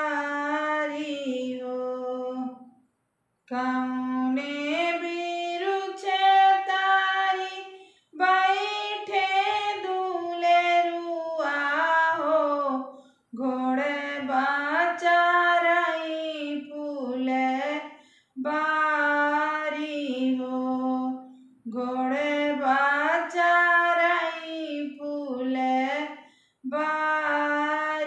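A woman sings a Bagheli folk wedding song (beta vivah geet) solo and unaccompanied. Her voice moves in a narrow range, in phrases of a few seconds broken by short pauses for breath.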